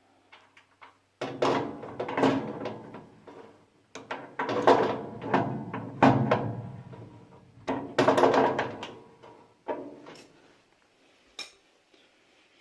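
Sheet-steel gun cabinet clanking and rattling in a series of bursts as a 12-inch adjustable wrench turns the lock's large nut, with a sharp metal click near the end.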